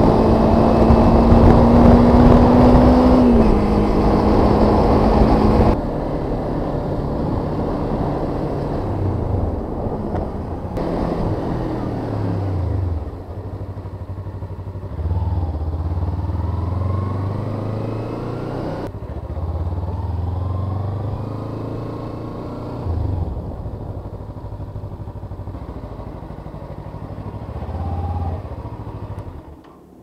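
Kawasaki Ninja 250 motorcycle engine heard from the rider's camera. For the first six seconds it runs at speed with heavy wind rush, and its note drops about three seconds in. After that it is at low speed, rising and falling with the throttle, and it quietens as the bike comes to a stop near the end.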